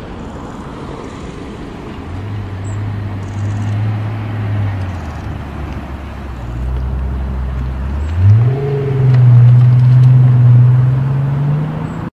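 Rolls-Royce V12 car driving by: the engine note holds steady, drops lower about five seconds in, then rises sharply at about eight seconds as the car accelerates away and keeps climbing, over steady tyre and road noise.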